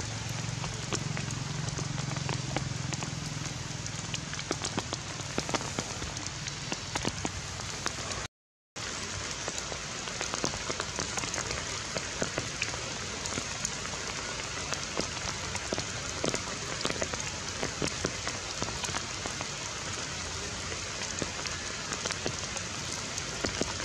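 Steady rain falling on surfaces, a dense even hiss with many separate drops tapping through it. The sound cuts out completely for about half a second around 8 s in, then carries on as before.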